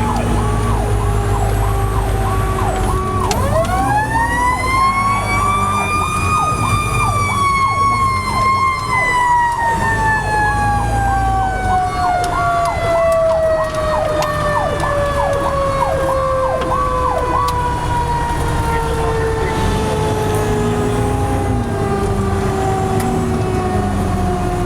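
Fire truck sirens on an emergency run: one siren winds up about three seconds in and then slowly falls in pitch, over a second siren cycling quickly in a repeating pattern until about two-thirds of the way through. A steady low engine rumble runs underneath.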